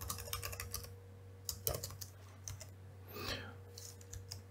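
Typing on a computer keyboard: a quick run of keystrokes at first, then scattered single keystrokes.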